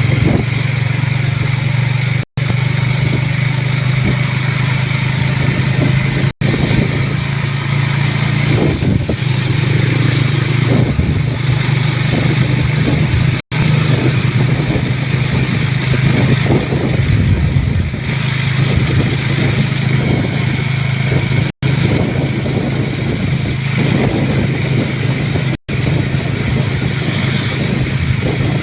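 A road vehicle's engine running steadily while driving, under loud road and wind noise. The sound cuts out for an instant about five times.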